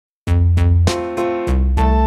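Upbeat electronic background music: synthesizer notes over a steady beat and a deep bass, starting suddenly about a quarter second in.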